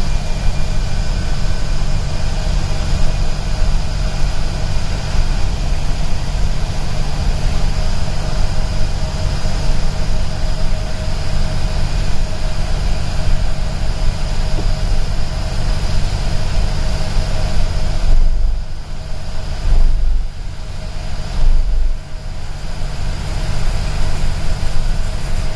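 Bus heard from inside its cabin at highway speed: a steady low engine and road rumble with the hiss of tyres on the wet road and a faint steady whine. The sound drops briefly a few times near the end.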